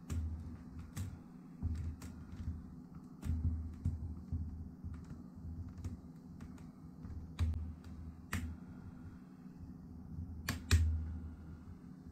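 Plastic display bezel of a Lenovo ThinkPad T490s being pressed back onto the screen lid, its clips snapping into place as a series of irregular sharp clicks, with dull low knocks from the handling in between.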